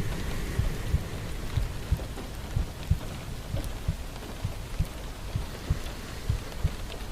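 Rain falling in a steady hiss, with frequent soft low thuds of drops hitting a surface.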